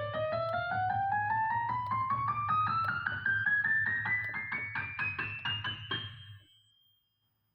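Electric piano music: quick repeated notes over a steady low bass, with a melody that climbs steadily in pitch, fading out about six and a half seconds in.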